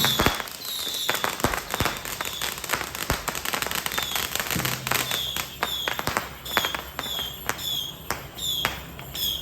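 Firecrackers and fireworks going off in dense, irregular bangs and crackles, with repeated short falling whistles. A steady low hum joins about halfway in.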